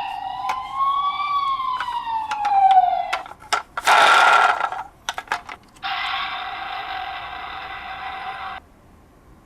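Toy emergency-vehicle minicar's electronic siren wailing, rising for about a second and then falling, with scattered sharp clicks. About four seconds in comes a short, loud hissing burst, then a steady electronic tone for about three seconds that cuts off suddenly.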